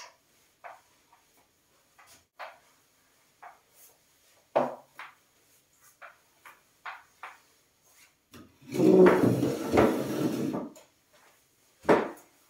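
Light knocks and taps of wooden chairs and a mop handle, then about two seconds of a wooden dining chair scraping across a tiled floor, followed by one sharp knock.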